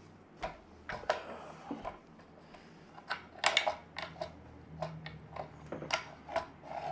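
Hand handling of an Evolution R300DCT electric concrete saw, the blade guard being moved: a scattering of irregular clicks and knocks, a few of them sharper near the middle, over a faint steady hum.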